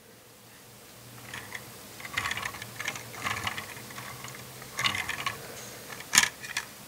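Plastic wheels of a LEGO car rolling over a smooth hard surface as it is pushed back and forth, a light clicking rattle, with one sharp click near the end.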